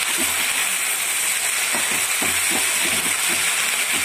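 Freshly washed moringa (drumstick) leaves sizzling in hot oil in a metal pan, a steady hiss as the water on them meets the oil. Under it, a spatula stirs the leaves with repeated soft scraping strokes, about three a second.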